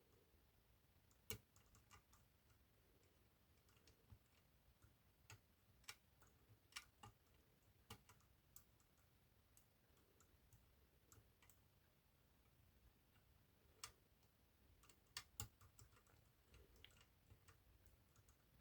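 Faint, irregular small clicks of a pick working the levers of an eight-lever lock, with a few louder clicks scattered among them.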